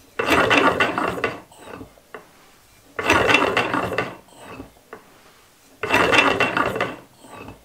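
Rhombic-drive Stirling engine turned over by its flywheel in three spins of about a second each, its timing gears and crank linkage running with a fast clicking rattle.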